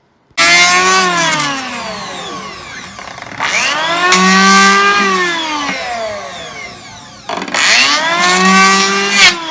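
Makita power tool's electric motor revved in three surges, its whine rising and then falling in pitch each time, like a motorcycle being revved.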